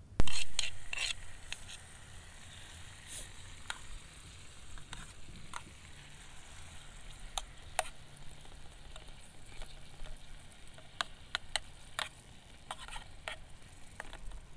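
Fried rice being cooked in a pan: food hits hot oil about a second in with a sudden loud sizzle that dies down over a second or so, then scattered clicks and scrapes as it is stirred.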